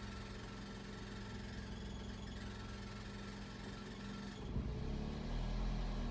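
Warm car engine idling roughly, with a fluctuating idle. It runs steadily at first; about four seconds in the engine speed shifts and the sound grows louder, with a deeper rumble.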